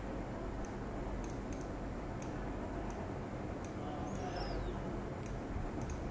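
Faint computer mouse clicks, about seven scattered single clicks, over a steady background hum. A short falling chirp is heard about four seconds in.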